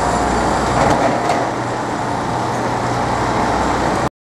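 Steady city traffic noise with a low hum and no distinct events; it cuts off suddenly near the end.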